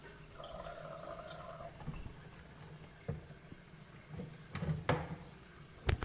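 Water running in a washing machine for about a second, starting half a second in, then a few sharp knocks and clicks, the loudest near the end.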